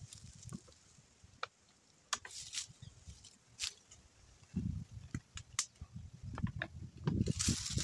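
Scattered light clicks and knocks of hands and a sponge working wooden beams, with low thumps from about halfway and a rustle of footsteps on dry leaf litter near the end.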